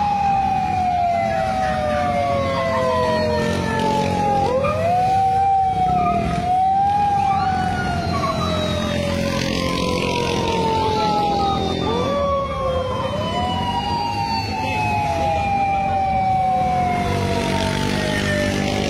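Police sirens wailing, at least two out of step, each rising quickly in pitch and then falling slowly, over a low rumble of traffic.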